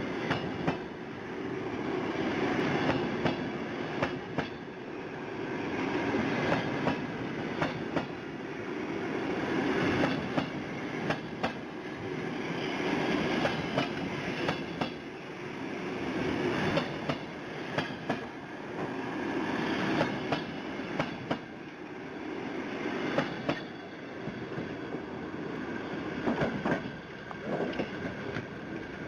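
Passenger train rolling along the track, its wheels clicking sharply over rail joints. The rolling noise swells and fades every few seconds.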